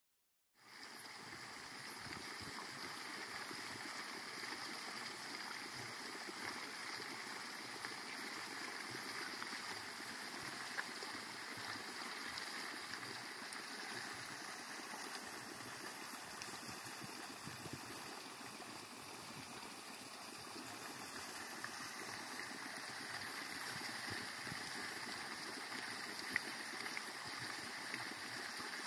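Geothermal steam vent with steam and gas escaping in a steady rushing hiss, mixed with hot water bubbling and flowing.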